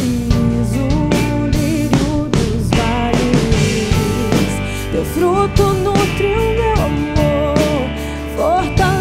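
A band plays a Christian pop-rock song with drum kit, bass and guitars. A melody line bends and wavers in pitch over the top.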